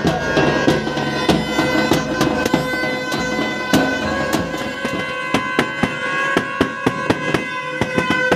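Procession drumming: large drums beaten fast with thin cane sticks, a dense run of sharp strokes. Under it, several plastic horns hold a steady drone of held tones.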